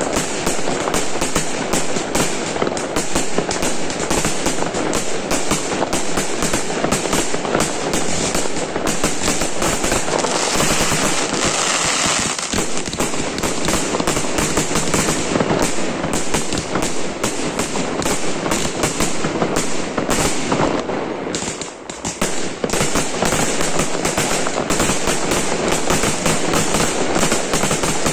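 Fireworks display: a continuous, rapid barrage of aerial bursts, many bangs a second mixed with crackling, letting up briefly about three-quarters of the way through.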